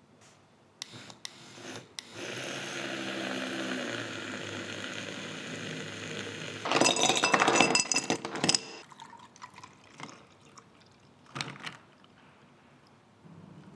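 Liquid poured steadily into a glass for about four seconds, then a louder stretch of clinking and clattering for about two seconds, with a couple of short knocks near the end.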